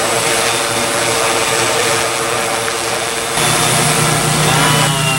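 Tarot T960 hexacopter's six electric motors and 18-inch propellers hovering overhead, a steady whirring hum. About three and a half seconds in, the hum steps up in pitch and loudness.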